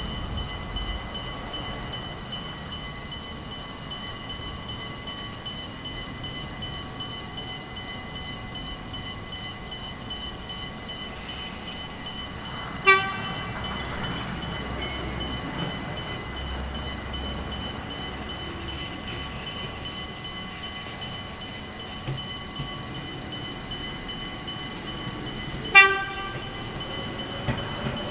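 Gakunan Railway electric train sounding short horn toots, one about halfway and one near the end, with its motor whine rising near the end as it gets under way. Steady high ringing tones run underneath.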